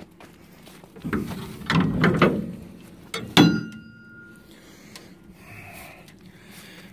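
Steel rear door hardware of a live bottom trailer being worked open. There is scraping and rattling for a second or so, then a sharp metallic clang about three seconds in that rings for about a second.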